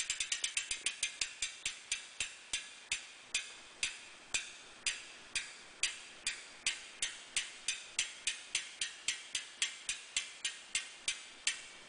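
Hadley bicycle hub's freehub ratchet clicking as the wheel spins freely. The clicks slow from a quick run into separate ticks, about two to three a second, and stop near the end.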